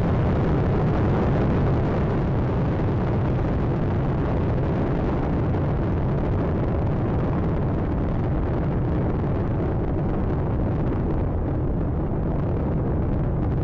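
Space Shuttle Atlantis's solid rocket boosters and three main engines during ascent: a steady, dense, deep rumbling noise that goes slightly duller near the end.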